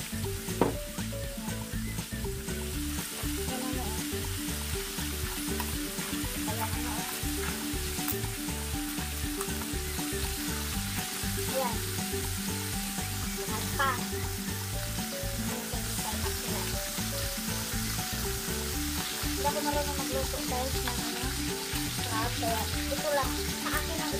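Crabs cooking in a large wok: a steady sizzle and hiss of steam, with a single sharp knock about half a second in.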